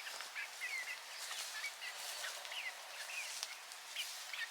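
Short, scattered bird chirps, some rising and some falling in pitch, over a steady outdoor hiss.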